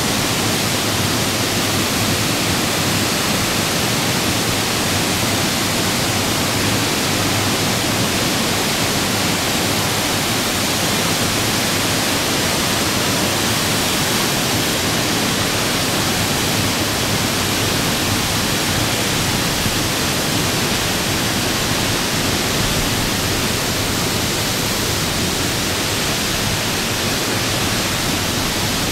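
Havasu Falls pouring into its plunge pool: a steady, unbroken rush of falling water.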